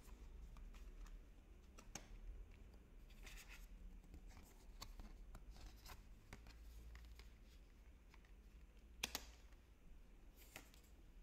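Faint clicks and rustles of stiff tarot cards being handled and laid on the table, with a sharper tap about nine seconds in and another near the end.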